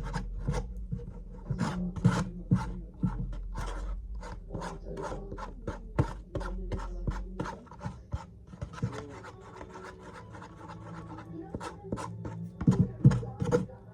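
A spoon scraping and stirring a glue-and-borax slime mixture on a plate, in quick repeated strokes about two or three a second. The strokes ease off for a few seconds past the middle and grow louder again near the end.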